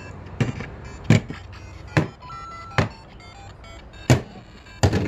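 Lego Super Mario interactive figure being hopped across the Lego bricks: about six hard plastic knocks, roughly one a second, with the figure's small speaker playing its course music and a short electronic beep near the middle.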